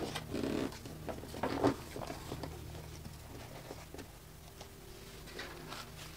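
A picture-book page being turned, with two short rustles of paper in the first two seconds, followed by softer handling sounds as a small plush toy is picked up and set down on the book.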